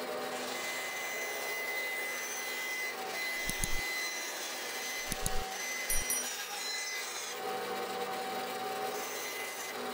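Bandsaw running and cutting walnut: a steady motor whir with a thin whine and the blade rasping through the wood, broken by a few brief knocks in the middle.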